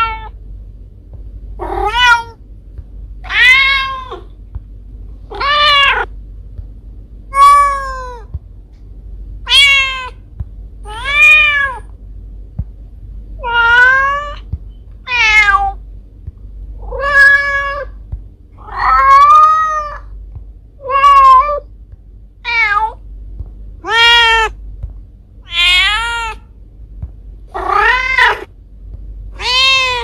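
Mother cat meowing over and over, about one call every one and a half to two seconds, each call rising and then falling in pitch: a mother cat calling for her kittens.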